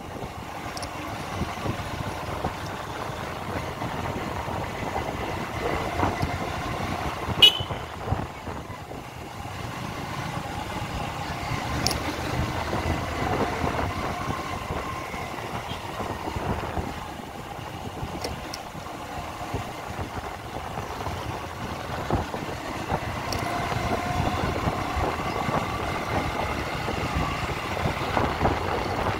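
Busy city street traffic: a steady din of engines and road noise, with horns tooting now and then.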